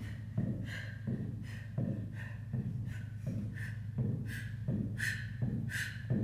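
Hard, rhythmic breathing, a short sharp exhale roughly every 0.7 seconds. Between the breaths come light thumps of sneakers landing on a wooden floor, from a person doing fast mountain climbers.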